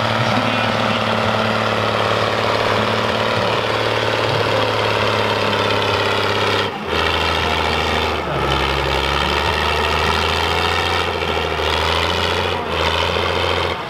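Vintage farm tractor engine running hard while pulling a weight sled, with a steady engine note. The note drops lower about seven seconds in and shifts again about a second later.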